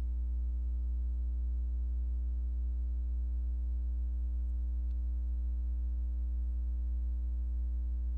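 A steady low hum with a row of fainter, evenly spaced higher overtones above it.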